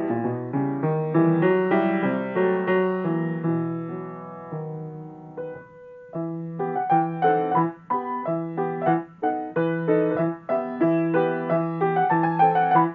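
Solo grand piano playing. A phrase slows and fades out a little under halfway through, and after a short pause a new passage of short, separate chords starts over a repeated low note.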